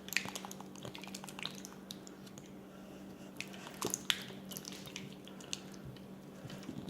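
Soft, watery slime being squished and handled by hand: irregular small wet clicks and squelches, a few sharper ones about four seconds in.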